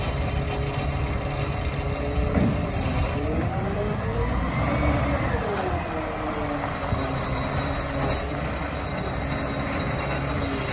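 Peterbilt 520 garbage truck with a McNeilus ZR side-loader body moving slowly, its engine running with a pitch that rises and then falls about midway. A thin, high brake squeal comes in over the engine in the second half.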